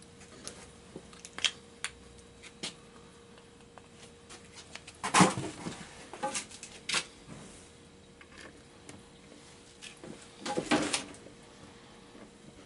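Scattered light knocks and scrapes of hands handling a PVC pipe set in a plywood panel, with two louder bouts of clattering about five seconds in and about ten and a half seconds in. A faint steady hum sits underneath.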